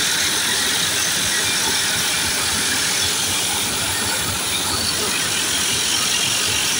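High-pressure water jet hissing steadily as it blasts through the mesh of a ship's sea chest strainer basket, cleaning it.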